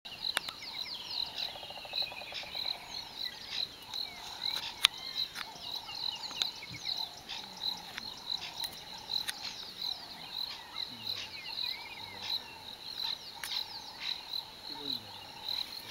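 Chorus of frogs and insects: short high calls repeating about twice a second, with many small chirps over them and a low trill, broken by a few sharp clicks.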